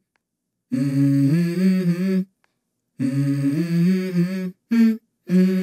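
Channel intro music: a low voice humming a slow tune in a few short phrases, with dead silence between them.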